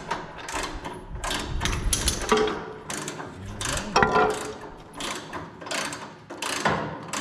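Hand ratchet wrench clicking in repeated short strokes as bolts are run off the tractor's step bracket, with a few louder metal knocks among them.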